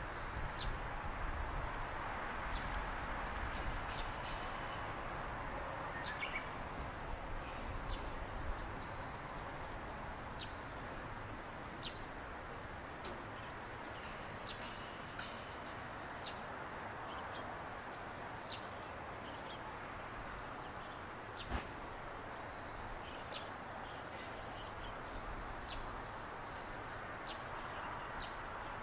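Small birds chirping in short, scattered calls over a steady background hiss of open country, with a faint low rumble dying away in the first several seconds.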